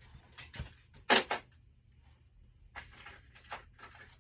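Small steel sockets clinking and clacking as they are handled and sorted to find the right size. There is one sharp clack about a second in and a few lighter clicks around three seconds in.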